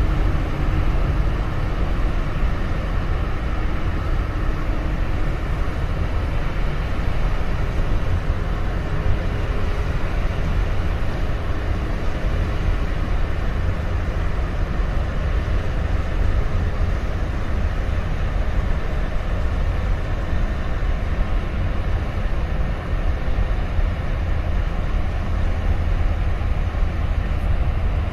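Steady low rumble of the 366 m container ship COSCO England passing close by, from its engine and propeller wash, with faint steady hum tones in the first half.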